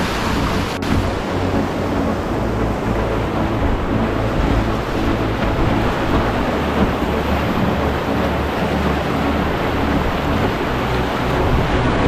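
Whitewater rushing loudly and steadily through a shallow, rocky rapid, heard from a kayak running it.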